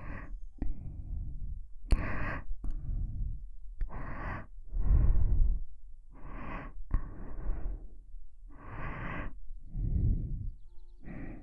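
A person breathing slowly and very close into a binaural dummy-head microphone: about nine separate inhales and exhales, each lasting under a second or so, several with a low rumble of breath striking the microphone. A few short clicks fall between some of the breaths.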